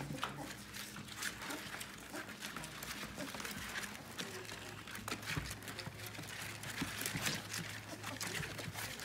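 A litter of 2.5-week-old yellow Labrador puppies nursing from their mother: many quick, wet suckling clicks and smacks, with small animal whimpers among them.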